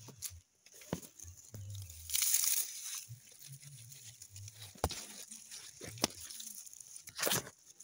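Dry straw mulch and leaves rustling and crunching, in uneven bursts with scattered small snaps, loudest about two seconds in and again near the end.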